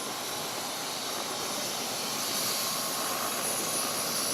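Helicopter turbine engine and rotor noise: a steady rushing drone with a faint high whine, slowly getting louder.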